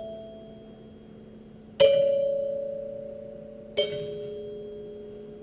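Robotic glockenspiel (Heliphon) striking its metal bars: a loud two-note strike about two seconds in that rings and slowly fades, then a quieter two-note strike two seconds later that rings on.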